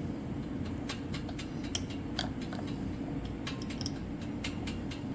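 Irregular light metallic clicks and ticks of bike parts and hand tools being handled while a crank arm is fitted to the bottom bracket spindle, over a steady low hum.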